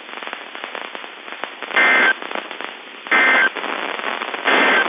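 Emergency Alert System SAME digital data tones: three short buzzing bursts a little over a second apart. This is the end-of-message code that closes the severe thunderstorm warning. Between the bursts, a crackly hiss of radio static.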